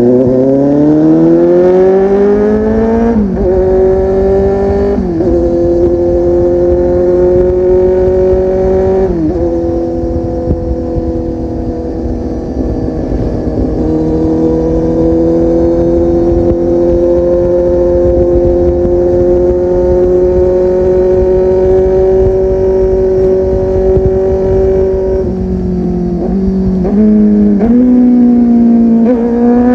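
Kawasaki Z800's inline-four engine through an aftermarket full-system exhaust, accelerating hard with three quick upshifts in the first ten seconds, then cruising at steady revs. Near the end it drops through a few downshifts with short throttle blips and starts pulling again.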